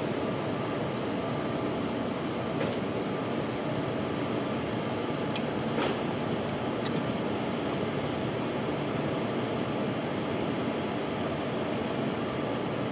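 Steady hum and rush from a standing locomotive's running machinery, coupled to the train, with a few faint light clicks about halfway through.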